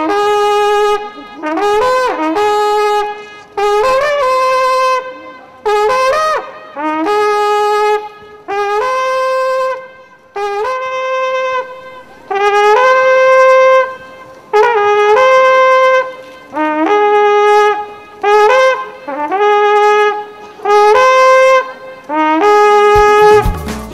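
A long curved wooden horn blown in a string of short calls of about a second each. Many notes scoop up into pitch, and the calls jump between two or three notes of the horn's natural scale.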